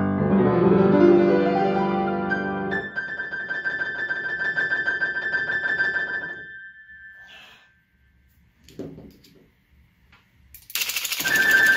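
Grand piano played by hand: a rush of chords and runs, then one high note repeated very fast for about three seconds before dying away. After a short lull with a couple of soft knocks, a car-lock-actuator rig starts up near the end with a mechanical clatter and hammers a single high key in a rapid buzzing tremolo.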